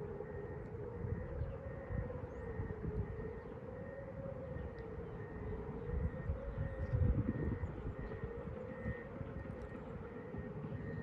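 Tornado warning sirens sounding a steady alert tone that wavers slowly up and down in pitch and level, over a low rumble that swells about seven seconds in.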